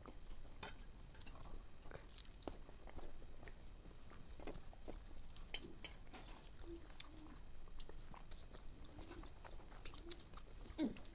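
Faint sounds of people eating rice by hand from steel plates: scattered soft clicks of fingers and rice against the metal, and chewing.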